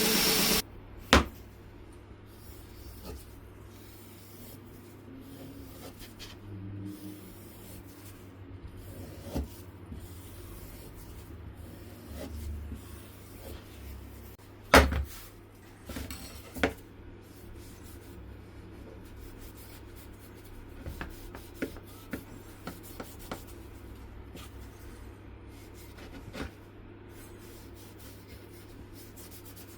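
A steady low hum with light rubbing and a few scattered sharp knocks, the loudest about halfway through; it sounds like hand work on a small object.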